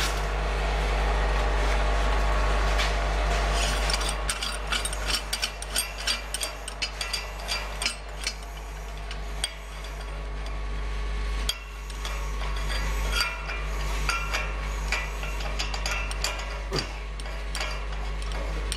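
Metal clicking, tapping and scraping as stainless-steel parts are fitted by hand onto the top of a tubular centrifuge, with many short knocks from about four seconds in, over a steady low rumble.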